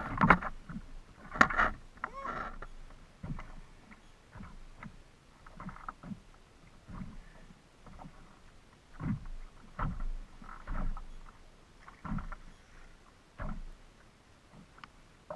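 Choppy lake water slapping against the plastic hull of a Hurricane Skimmer 140 fishing kayak in irregular low knocks. In the first couple of seconds there is a burst of sharp clattering and splashing as a landing net with a fish in it is lifted aboard.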